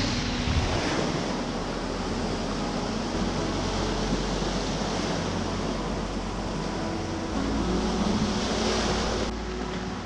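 Sea surf washing over a rocky shore: a steady rush of water.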